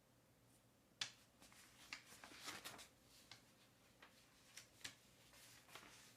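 Faint handling sounds at a study desk: a sharp click about a second in, then a short spell of rustling, and a few more light clicks.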